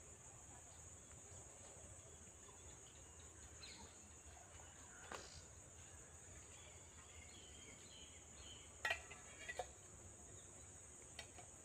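Faint, steady high-pitched drone of insects in the grass, with a couple of sharp clicks about nine seconds in.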